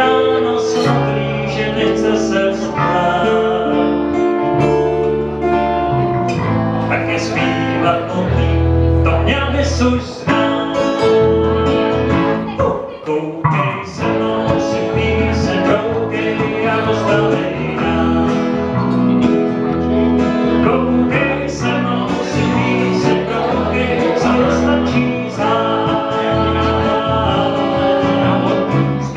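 A small live band of acoustic and electric guitars playing a song, with singing at times.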